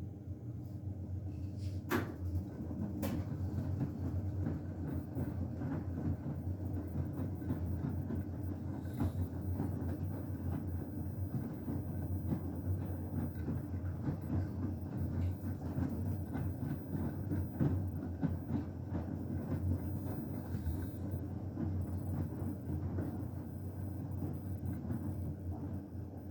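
Beko WTK104121W washing machine in its Cottons 60 main wash, drum turning with a steady motor hum while wet, sudsy towels slosh and tumble inside. A couple of sharper clicks come about two and three seconds in.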